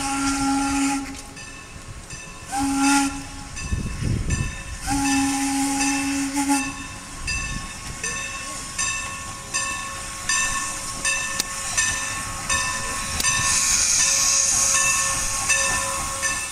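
Steam locomotive whistle sounding three times — a long blast, a short one, then a longer one — on one deep chime. The locomotive's bell then rings steadily, about two strokes a second, and a burst of steam hiss rises near the end.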